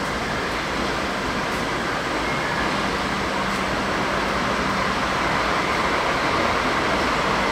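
A DD16 diesel-hydraulic locomotive running light, its diesel engine running as it rolls slowly closer, growing gradually louder, with a steady low hum throughout.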